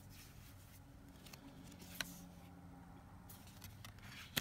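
Tarot cards being handled quietly: a faint click about halfway through and a sharper card click near the end, over low room noise.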